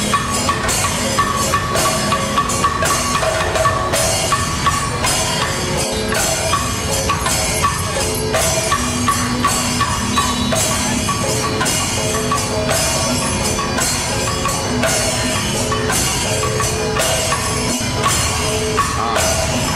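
Music: a percussion-led piece with drums and a steady run of quick strikes over held tones.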